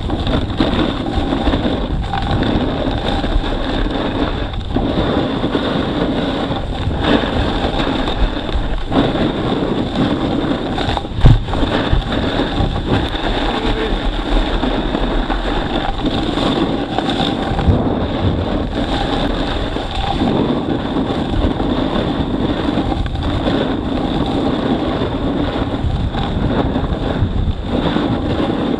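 Steady rush of wind on the microphone with a snowboard sliding and scraping over snow during a descent, and one sharp knock about eleven seconds in.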